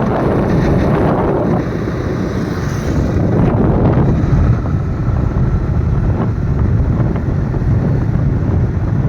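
Wind buffeting the microphone: a loud, uneven low rumble with no steady tone.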